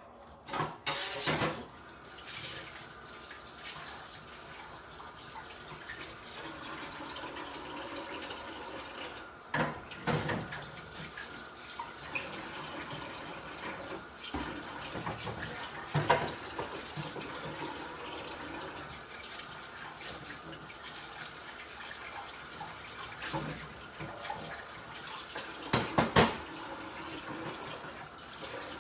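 Kitchen tap running steadily into a sink, broken by a few short, sharp knocks, the loudest near the end.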